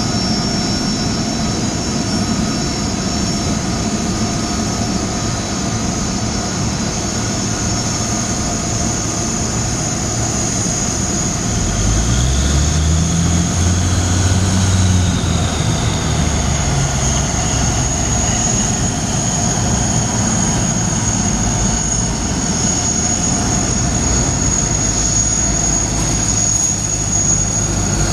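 Turbofan engines of an Airbus A330-223F freighter (Pratt & Whitney PW4000 series) running at taxi power: a steady jet rush with a high whine. About halfway through, a low engine rumble from a nearby ground vehicle swells and fades over a few seconds.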